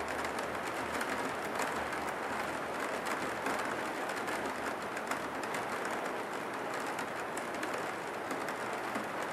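Steady hiss of falling rain, with a fine, even patter.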